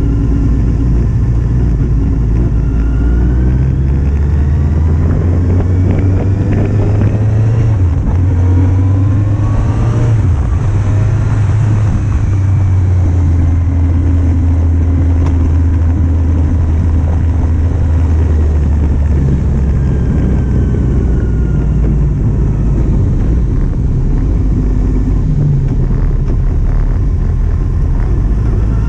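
A 2008 Kawasaki Z750's inline-four engine running while riding, its pitch climbing as it accelerates several times and falling as it eases off.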